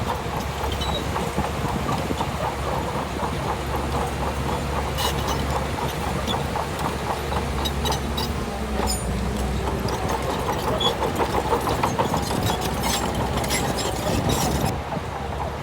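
Shantui DH17 bulldozer's diesel engine running steadily under work, with a fast rhythmic metallic clatter and a few sharp knocks about five and nine seconds in.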